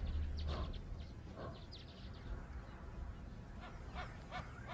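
Birds chirping in short, quick calls, scattered at first and coming several in a row near the end, over a faint low rumble.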